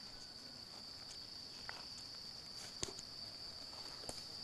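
Faint, steady high-pitched drone of insects, with a few faint ticks over it.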